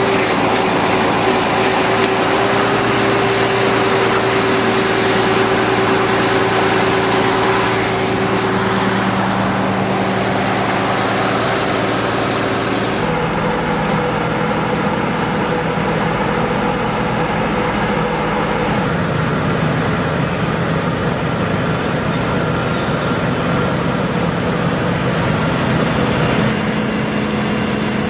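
Heavy machinery engines running steadily, with noisy working sounds. The sound changes abruptly about halfway through, as if to a different machine.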